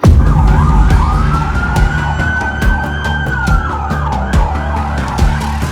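Emergency vehicle sirens: a fast yelp sweeping up and down about twice a second, with a longer rising and falling wail in the first few seconds, over a low drone and regular thuds.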